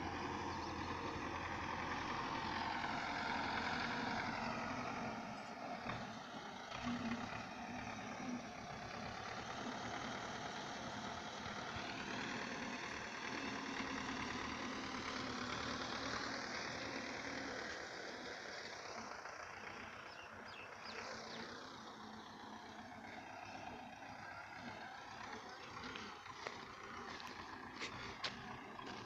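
Engine running with its pitch slowly rising and falling, growing quieter after about eighteen seconds; a few sharp clicks near the end.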